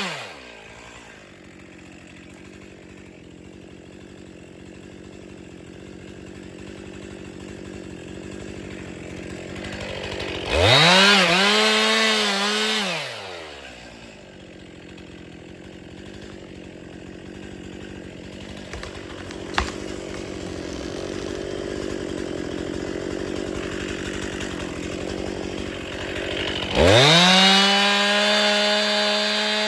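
Two-stroke chainsaw idling, then revved to full throttle twice for two to three seconds at a time, about a third of the way in and again near the end, dropping back each time. A single sharp click about two-thirds of the way through.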